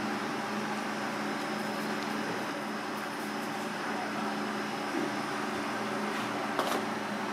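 Steady kitchen machinery hum with a low drone and a hiss over it, with a light tap about five seconds in and another shortly after.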